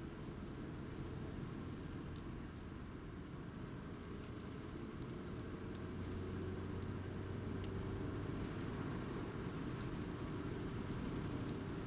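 Steady low rumble of a vehicle running, growing a little louder about halfway through, with a few faint ticks.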